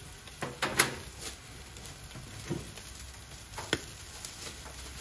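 Yakitori skewers sizzling over a commercial gas-and-charcoal grill, a steady hiss. A few sharp clicks cut through it, the loudest about a second in.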